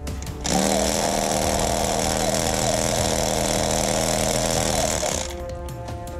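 Battery-powered toy gun firing an automatic burst: its motor whirs up and runs with a rapid mechanical rattle for about four and a half seconds. It starts about half a second in and stops about five seconds in.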